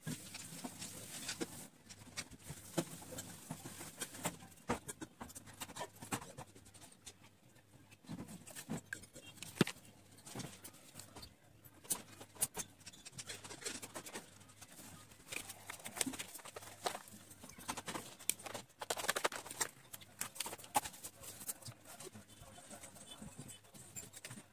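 Fine-tip felt marker being worked on paper: a steady run of small, irregular scratches and taps as the tip is stroked and dabbed across the drawing.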